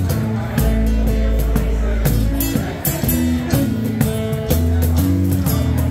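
Live acoustic trio playing an instrumental passage with no singing: strummed acoustic guitar, an electric bass holding long low notes, and cajón hits keeping a steady beat.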